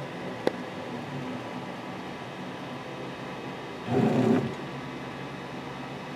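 Homemade servo-driven CNC router running a G-code program, its servo motors and slides humming steadily with several steady tones. There is a sharp click about half a second in, and a louder half-second burst of motor noise about four seconds in.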